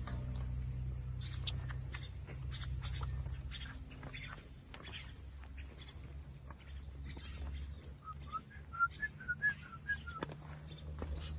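Outdoor ambience in a cattle pen: a steady low rumble with scattered light clicks and knocks. About eight seconds in comes a quick run of about eight short, high whistled chirps lasting about two seconds, the loudest sound here.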